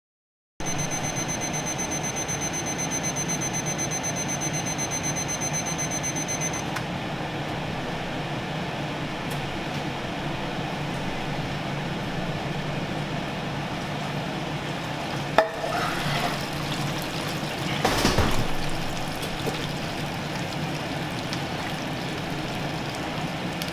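Meat thermometer alarm beeping rapidly and high-pitched for about six seconds, signalling that the chicken breast has reached 172°F, over a steady rushing noise. A click comes about two-thirds of the way in, then a brief louder noise a few seconds later.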